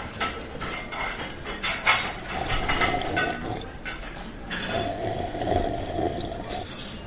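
Water running, with repeated clinks and knocks of dishes.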